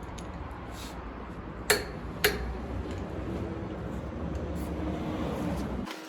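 Low steady rumble of a car being driven, with two sharp clicks about half a second apart; the rumble stops abruptly near the end.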